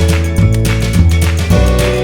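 Background music with a steady beat and bass, held chords and plucked notes.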